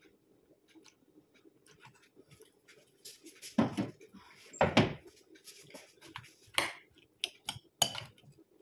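Two heavy thumps about three and a half and four and a half seconds in, then a metal spoon clinking several times against a glass salad bowl as the salad is stirred.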